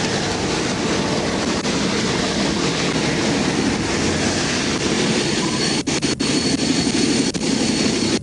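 Steady roar of interstate traffic passing the stopped vehicles. The sound briefly cuts out twice about six seconds in.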